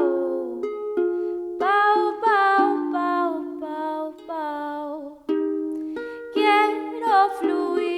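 A live song: a solo voice singing a melody over plucked string chords, with several sung phrases.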